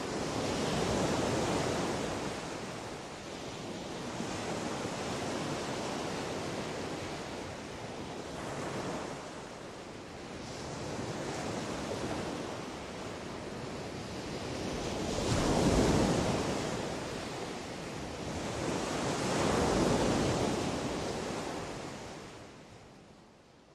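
Ocean surf breaking and washing up a beach, surging and receding every few seconds, with the biggest surges past the middle. It fades out at the end.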